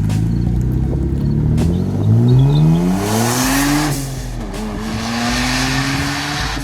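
Mitsubishi Galant VR-4's twin-turbo V6 accelerating hard. The revs climb, drop at a gear change about four seconds in, then climb again, with a rushing hiss on boost. The engine pulls cleanly, its misfire cured by replacement coil packs.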